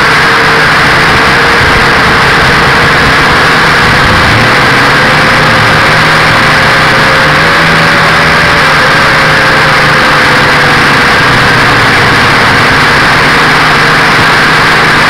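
Visitor 6 quadcopter's motors and propellers heard through its own onboard camera in flight: a loud, steady buzzing whine whose pitch wavers slightly up and down.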